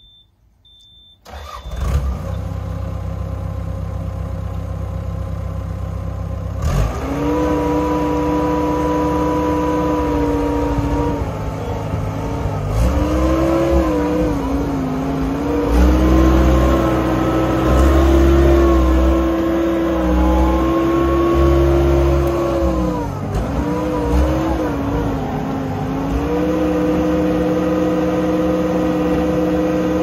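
Caterpillar 248 skid steer's diesel engine starting just after two short high beeps and idling, then throttled up about seven seconds in. It runs at high revs with its pitch sagging and recovering a few times under load as the machine is worked, then holds steady near the end.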